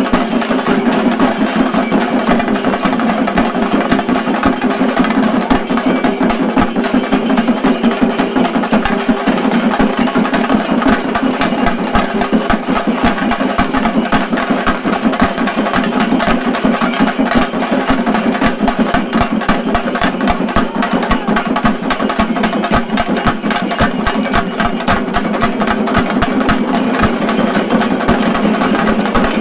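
Shinkari melam: a troupe of Kerala chenda drums beaten with sticks in a dense, fast, unbroken roll.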